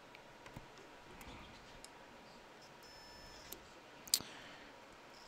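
Faint clicking of push buttons being pressed one after another on a fireworks firing panel, with one sharper click about four seconds in. A brief faint high tone sounds a little before it.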